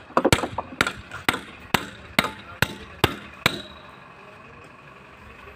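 Hammer blows on metal, about two a second, each with a short ring, stopping about three and a half seconds in.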